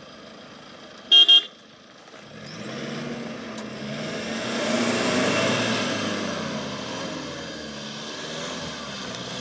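A short, loud car-horn beep about a second in. Then SUV engines build up and run under load as a Toyota Fortuner tows a Tata Safari Storme out of deep ruts on a recovery strap, loudest about halfway through and easing slightly after.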